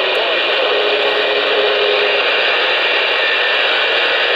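Ranger RCI-2970N4 ten-meter radio's receiver putting out steady static hiss from its speaker, tuned to 27.185 MHz (CB channel 19) with the squelch open, while listening for replies to a radio check. A faint steady tone sits under the hiss for the first two seconds.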